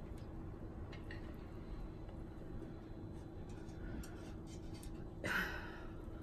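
Quiet kitchen room tone with a steady low hum, under faint soft clicks of hands laying stuffed grape-leaf rolls into a pot. One brief louder noise about five seconds in.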